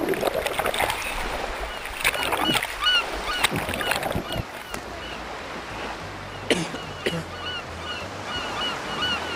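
Sea water splashing and washing, busiest in the first four seconds and calmer after. Birds call over it in short, quickly repeated chirps.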